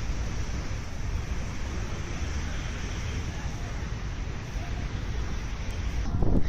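Steady wind rushing over the microphone, with a constant low rumble and no distinct events.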